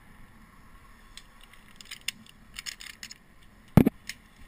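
Metal carabiners and a zip-line pulley clinking against each other as harness gear is handled and clipped, with one loud sharp knock near the end.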